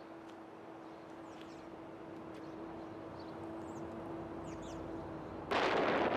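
Quiet outdoor ambience with a steady low hum and a few faint bird chirps. About five and a half seconds in, wind suddenly starts buffeting the microphone loudly.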